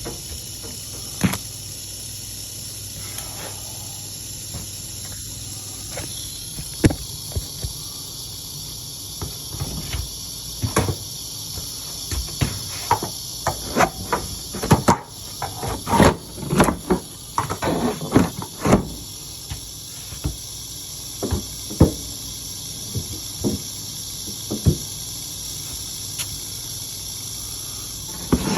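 Canebrake rattlesnake rattling, a steady high buzz that goes on without a break, the sign of an agitated snake. Over it come many knocks and scrapes of a tool working under the refrigerator, thickest in the middle of the stretch.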